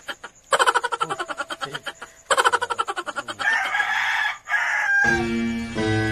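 Chicken clucking in three runs of rapid clucks, then a longer call. Music with a steady bass comes in about five seconds in.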